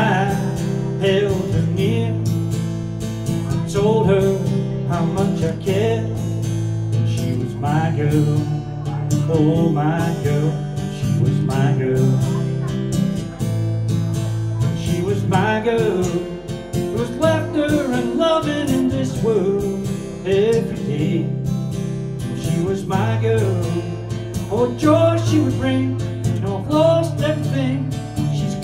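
Acoustic guitar strummed in steady chords, with a man singing a song over it.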